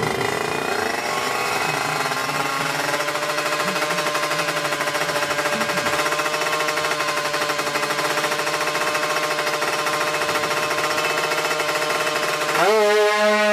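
Two-stroke Kawasaki Ninja 150-engined drag bike held at a steady high rev on the start line, a fast buzzing rasp. Near the end the revs shoot up and it gets louder as the bike launches off the line.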